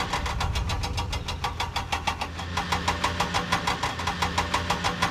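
Engine idling sound for the toy excavator: a steady low chugging made of rapid, evenly spaced knocks.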